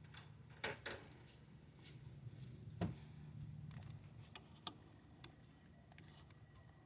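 A few light knocks and clicks, the loudest near the middle, over a low steady hum.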